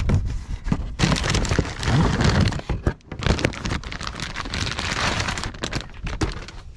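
Plastic packaging crinkling and parts being handled close to the microphone: a dense crackling rustle with many scattered clicks, easing briefly about three seconds in.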